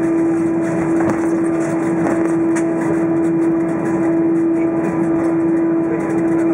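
Cabin noise inside an Airbus A320 taxiing after landing: the engines drone steadily at taxi power, with one constant mid-pitched tone over the rushing noise.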